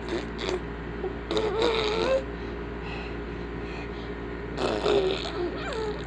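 Baby babbling and cooing: short high vocal sounds that slide up and down, a longer one about a second in and another near five seconds.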